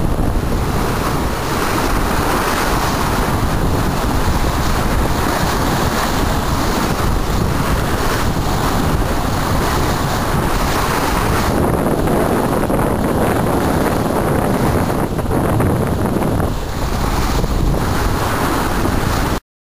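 Wind buffeting the microphone over water rushing along the hull of a Bull 7000 sailing yacht under sail in choppy sea; the sound cuts off suddenly near the end.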